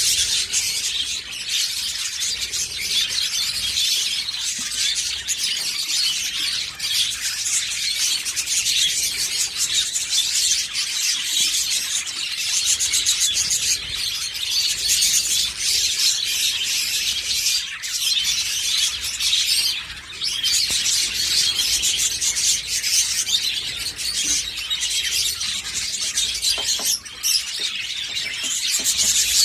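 Budgerigars chattering and warbling without a break, a dense stream of high chirps and squeaks.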